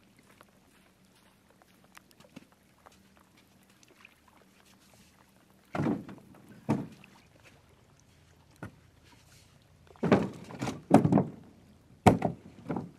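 Split firewood being loaded into a canoe: a series of wooden thunks as pieces are set down in the hull. The thunks begin about halfway through and come closer together toward the end.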